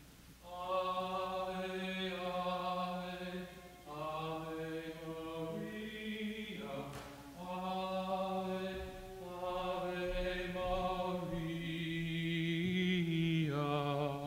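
A man's solo voice singing a slow, unaccompanied sacred chant in long held notes, phrase after phrase with short breaks between.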